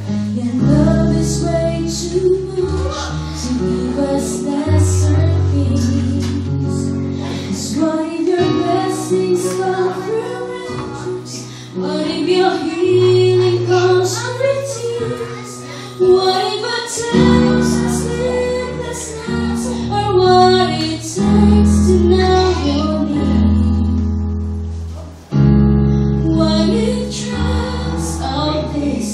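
A woman singing a worship song into a microphone, accompanied by keyboard chords and a strummed acoustic guitar.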